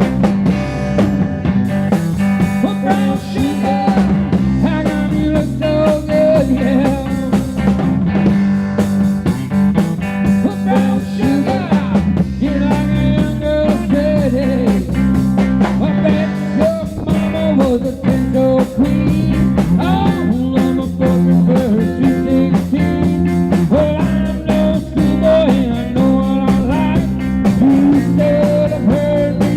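Live rock band playing: electric guitars, bass and drum kit keep up a steady groove, with a lead line of notes that bend up and down over the chords.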